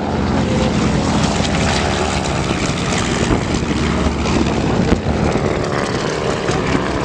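Propeller-driven T-6 Texans' radial engines running in flight, a steady drone.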